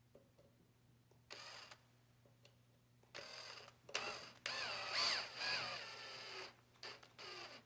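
Cordless screw gun running in short bursts, driving screws, its motor whine sliding in pitch as the screws tighten. A short burst comes just over a second in, then a longer run of about three seconds from about three seconds in, and another short burst near the end.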